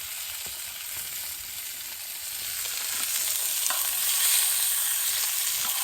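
Food sizzling in a frying pan over a campfire: a steady hiss with a few faint clicks that grows louder about three seconds in.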